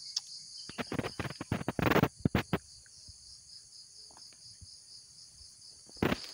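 Insects chirring steadily in a high, pulsing drone, with a quick run of loud knocks and rustles about a second in and another short knock near the end.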